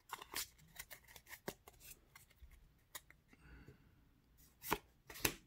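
Pokémon trading cards handled in a hand-held stack, slid and flicked one by one from back to front. They make a run of light, irregular snaps and rustles, with two sharper clicks near the end.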